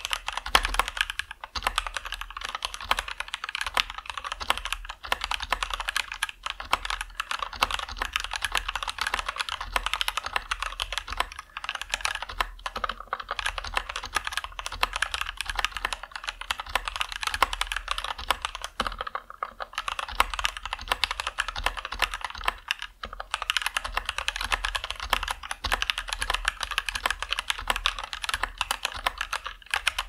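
A stock Anne Pro 2 60% mechanical keyboard with Gateron Red linear switches and PBT keycaps, typed on fast and continuously: a dense run of keystrokes, with brief pauses about 12, 19 and 23 seconds in.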